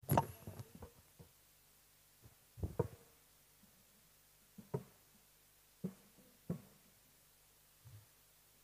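Dull thumps and knocks, a quick cluster at first and then single ones every second or two, picked up by a desk microphone as it is bumped and handled while someone settles in behind it. A faint steady hum runs underneath.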